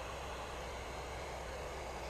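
Steady hiss of FM radio static from a ham radio receiver listening on the SO-50 satellite downlink, with no signal coming through, over a low steady hum.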